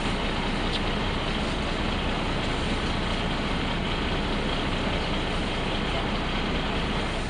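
SOR B 9.5 bus running steadily. Its engine and running noise hold an even level, with no revving, gear change or brake release.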